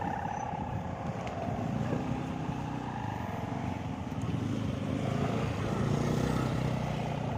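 Hummers (sawangan) on many large kites flying overhead, droning together as several overlapping, wavering tones, some low and some higher. The drone swells a little in the second half.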